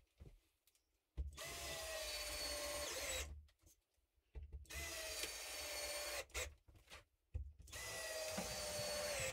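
Power drill driving screws into wooden wall boards: three runs of about two seconds each with short pauses between, the motor's whine sagging a little at the end of each run as the screw pulls tight.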